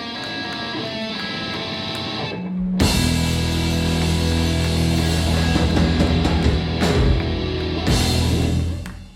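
Live punk rock band with distorted electric guitars, bass and drums playing without vocals; after a short break about two and a half seconds in, the band hits a long held closing chord with cymbal crashes that dies away near the end.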